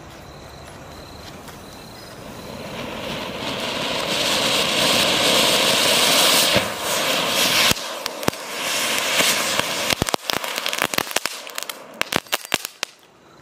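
Anar flower-pot fountain firework hissing as it gushes sparks, building up over the first few seconds, then the small chatar-patar crackers fixed to it going off in a quick, irregular string of crackling pops during the second half.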